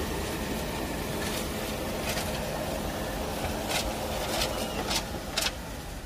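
Hako Sweepmaster B980 R ride-on sweeper running, a steady whir of its motors and rotating brushes as it drives over the pavement, with about five short sharp clacks in the second half.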